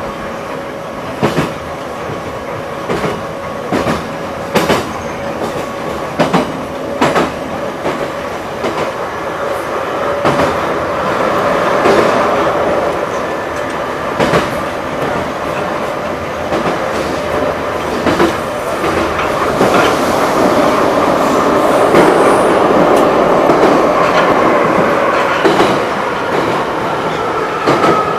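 Soviet-built Ezh-series metro train running at speed, heard from inside a car by the door: a steady whine under wheel and track noise, with sharp rail-joint clicks about once a second in the first half. The running noise swells louder about halfway through.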